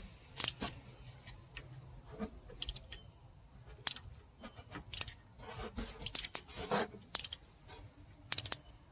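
Ratchet wrench clicking in short irregular bursts as a brake caliper screw is run back in.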